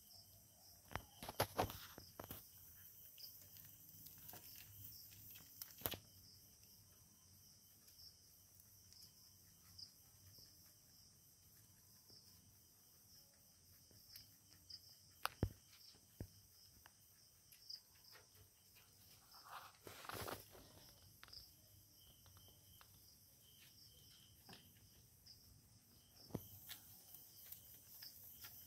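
Mostly quiet: faint scattered rustles, clicks and a few soft knocks as a doe rabbit and her kits shift about in hay on a wooden hutch floor, with crickets chirping faintly behind.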